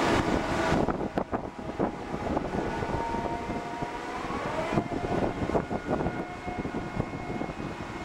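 Crane machinery running as a suspended clamshell grab is lowered on its wires: a steady whine that rises in pitch about halfway through, with irregular knocks throughout. A loud hiss eases off about a second in.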